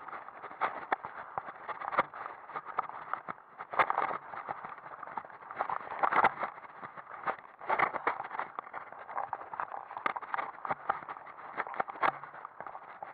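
Mountain bike riding down a rocky gravel trail: tyres rolling over loose stones and the bike rattling in a constant, uneven clatter, with harder jolts every second or two over bumps.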